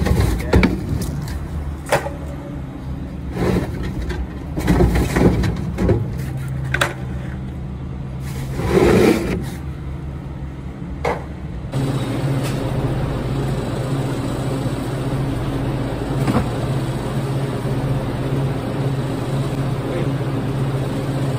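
Plastic soda crates and bottles on a hand truck knocking and clattering as they are moved, over a steady low hum. About halfway through, this gives way to the steady electric hum of a walk-in cooler's refrigeration fans, with only an odd knock.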